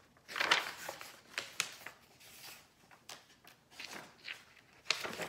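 Paper pages of a picture book rustling and flapping as they are turned, in several short swishes, the strongest about half a second in and again near the end.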